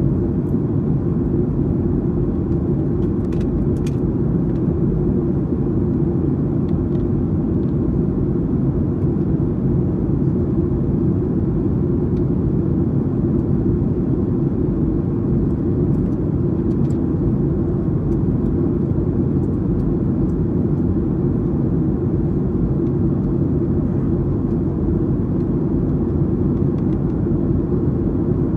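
Steady low cabin noise of a Boeing 737-800 in flight, with its CFM56-7B engines and the airflow heard from a window seat.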